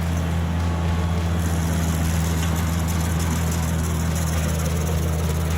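Stump grinder engine running steadily with a low, even drone. A higher hiss joins it about a second and a half in.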